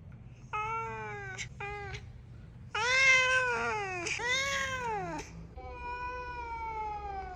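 Domestic cat meowing repeatedly, about five meows with rising-then-falling pitch. The loudest comes about three seconds in, and the last is a long, drawn-out meow that falls in pitch.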